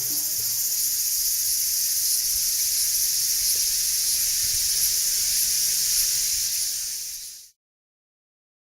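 A steady high-pitched hiss that fades and cuts out to silence about seven and a half seconds in.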